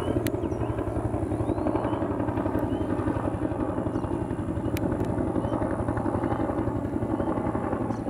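A steady, even engine drone.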